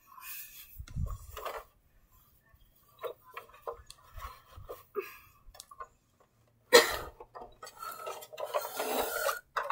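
Plastic toy car and plush toys being handled: scattered light clicks and taps of hard plastic, a sharper clatter about seven seconds in, then rustling and scraping as the car is pushed across a rug.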